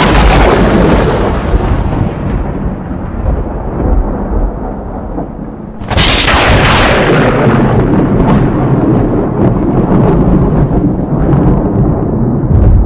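Loud thunder: a sharp crack at the start that rolls into a long low rumble, then a second crack about six seconds in that also rumbles on and fades.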